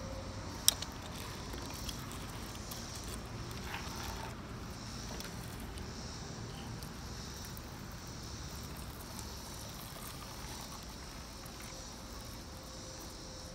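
Steady outdoor chirring of insects, with a sharp tap about a second in and a fainter one shortly after, as a plastic toy airliner is set down on a wooden deck railing.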